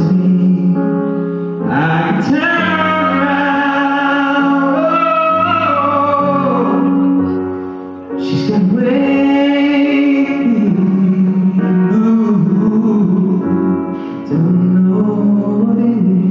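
Live male singer singing long, wavering held notes over sustained electric keyboard chords, with brief breaths between phrases.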